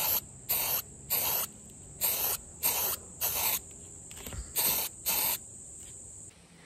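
Aerosol spray-paint can fired in short hissing bursts, about eight quick squirts of a quarter second or so each.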